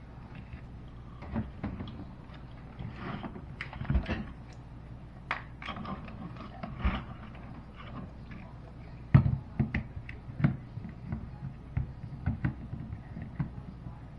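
Irregular clicks, knocks and clunks of things being handled, with the loudest clunk about nine seconds in.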